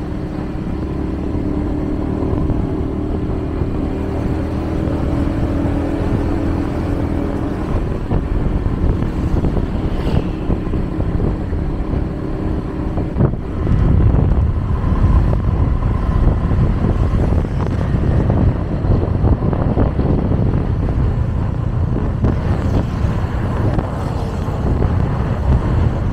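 Road traffic: cars and motorbikes running by, with a steady engine tone for the first several seconds and a heavier low rumble from about halfway through.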